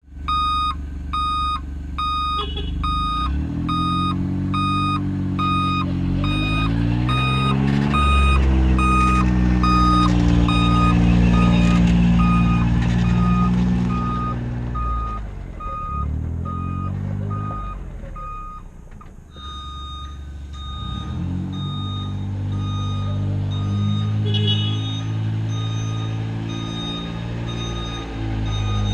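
Ecco backup alarm beeping about twice a second on a John Deere Gator utility vehicle, the beeps fading out after several seconds. Under it the Gator's engine runs, speeding up and slowing several times, easing off about two-thirds of the way through and then running steadily.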